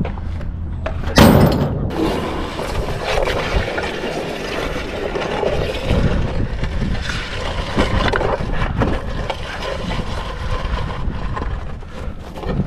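A heavy crash about a second in as things are thrown in, followed by several seconds of continuous clattering, rumbling noise.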